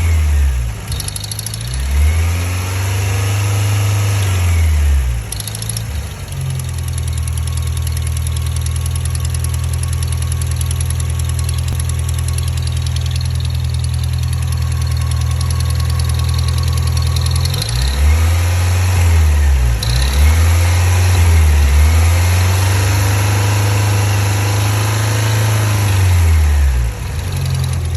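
1987 Toyota pickup truck engine idling, revved up and let fall back once near the start and several times in the second half. It has a ticking noise that the owner puts down to an exhaust leak, not the drivetrain.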